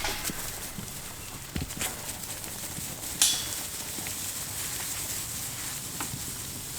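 Kiko goats' hooves shuffling and clattering on the ground, with scattered short knocks and one sharp, louder click about three seconds in.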